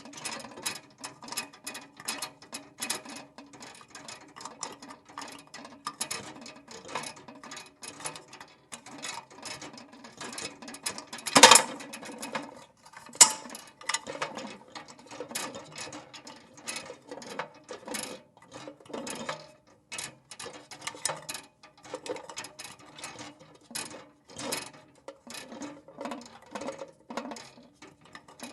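A metal lantern swinging as it is carried: its wire handle squeaking and clinking in its pivots and the glass chimney rattling, in a steady rhythm of two to three clinks a second. One sharper, louder clank stands out near the middle.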